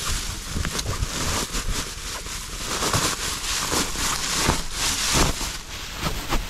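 Dry grass and reed stalks rustling and crackling in quick, irregular handfuls as they are pushed and woven into a duck blind's grass covering, with a low rumble of wind on the microphone underneath.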